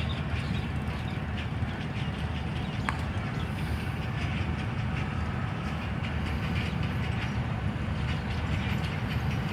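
Passenger train rolling through the station, a steady low rumble with wheels clicking over the rail joints, and one sharper click about three seconds in.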